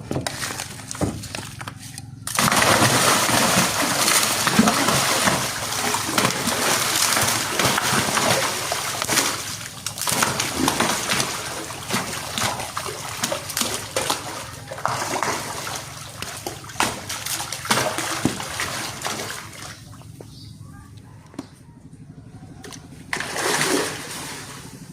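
Groupers splashing and thrashing at the pond surface as they scramble for food. The splashing starts suddenly about two seconds in, goes on in choppy bursts, dies down near the end, and one last short splash comes shortly before the end.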